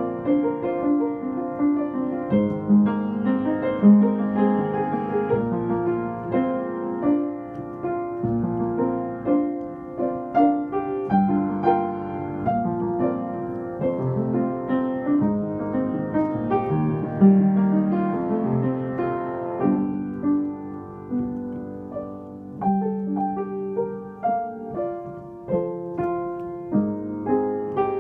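An upright piano played by hand in a flowing piece of overlapping chords and melody notes that ring on into each other. The loudness swells and falls from phrase to phrase.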